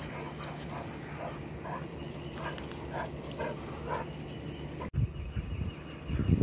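A dog whimpering softly in a run of short whines, about two a second, followed by a low rumble near the end.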